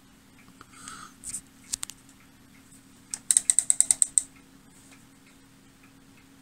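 Rotary selector switch on a Voltcraft 2040 oscilloscope clicked through its detent positions: a few separate clicks, then a quick run of about ten clicks about three seconds in.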